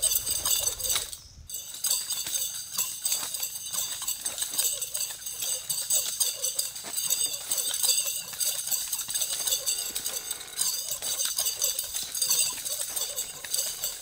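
Nunchaku swung and caught over and over, the handles knocking in quick irregular clicks, over a constant high-pitched insect chorus that dips briefly about a second in.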